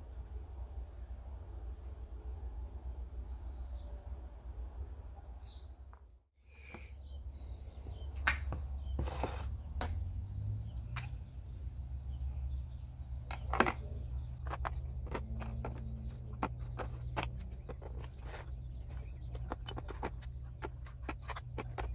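Small brass petrol-lamp parts clicking and clinking against each other and a plastic tub as they are handled and set into brass cleaner. The clicks are many and sharp from about eight seconds in, over a steady low rumble. A few faint bird chirps come in the first few seconds, and the sound cuts out briefly about six seconds in.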